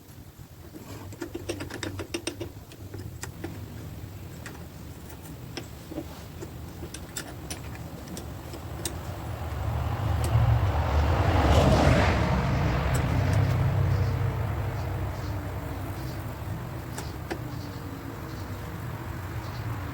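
A motor vehicle going by: a low rumble swells to its loudest about twelve seconds in, then slowly fades. A steady low hum and scattered light clicks and taps run under it.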